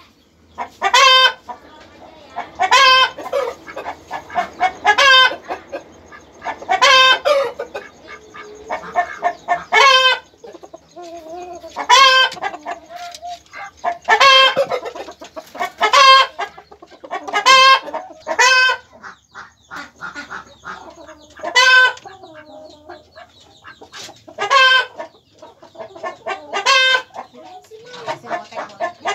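Chickens clucking: loud, short calls repeated every second or two, with quieter, lower clucks in between.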